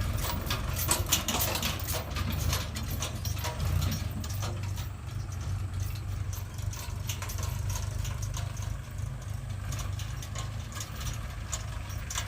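Diesel engine of a backhoe loader or tractor running steadily at low revs, with metallic clanks and rattles over the first few seconds.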